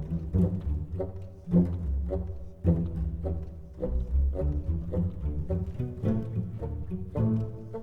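Music with heavy bass notes and a strong beat about once a second.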